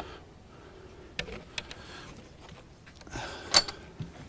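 Light handling sounds from a composite beehive lid being moved on a table: a few faint clicks, a brief rustle, and a sharp knock about three and a half seconds in.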